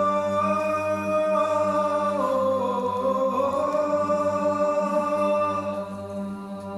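Unaccompanied Orthodox liturgical chant: long held sung notes over a steady lower note, the melody dipping and rising again in the middle, growing quieter near the end.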